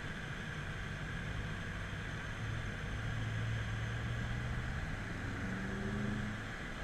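BMW F10 M5's twin-turbo V8 heard from inside the cabin while lapping a track, with tyre and wind noise. The engine note builds from about two seconds in, rises higher near the end, then eases off just before the end.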